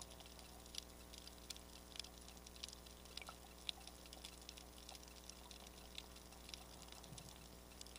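Faint underwater ambience: irregular sharp clicks and crackles, a few a second, over a low steady hum.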